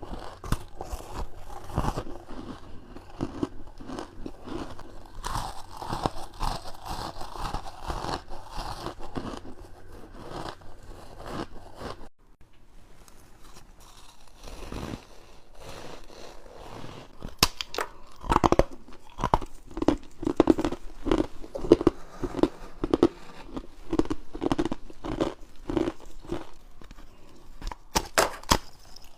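Close-up crunching bites and chewing of frozen frost and ice. There is dense crackling for the first twelve seconds, then a brief quieter gap, then sharp crunching bites followed by steady, rhythmic chewing.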